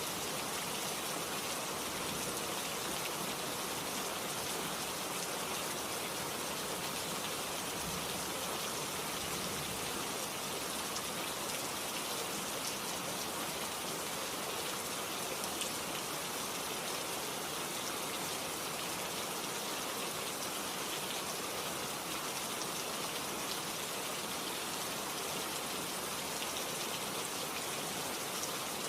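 Steady rain falling, a dense even hiss of drops on a surface with fine individual drop patter.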